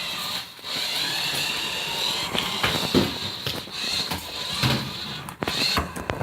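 Small electric motor of a toy remote-control car whining as it drives, with scattered clicks and knocks.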